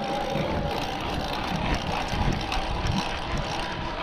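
An e-bike's electric motor whining steadily under power as the bike speeds up, the whine rising gently in pitch, over low wind and road rumble.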